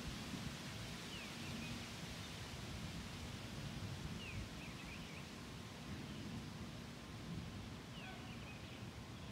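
Faint outdoor evening ambience, a steady hiss, with a few short high downward-sliding bird chirps: one about a second in, a cluster around four to five seconds, and another near eight seconds.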